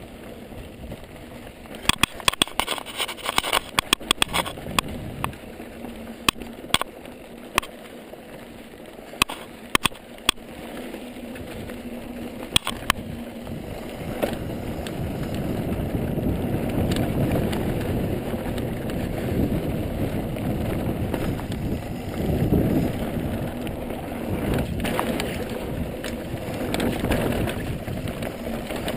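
A mountain bike riding over a rocky dirt trail. Its frame and parts rattle and clatter in sharp, irregular clicks over the bumps, while the tyres rumble on the ground. From about halfway through, a louder rumble of tyre and wind noise builds up and holds.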